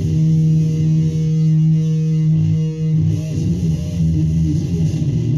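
Guitar music played through a floor-standing loudspeaker: one low note held for about three seconds, then busier playing.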